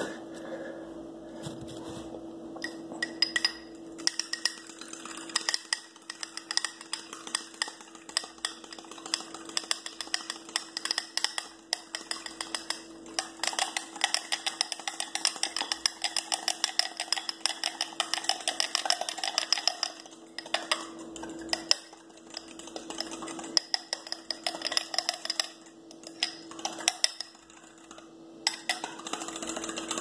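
Eggs being beaten by hand in a small glass bowl, the utensil clicking rapidly against the glass with a few short pauses, over a steady low hum.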